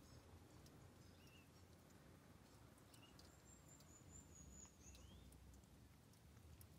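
Near silence with faint bird calls: a few short chirps and one long, high whistle in the middle.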